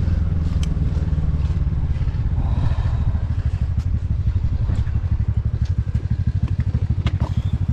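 TVS Ntorq 125 scooter's single-cylinder engine easing off as the scooter rolls to a stop, then idling with an even low pulsing beat. A few small clicks are heard.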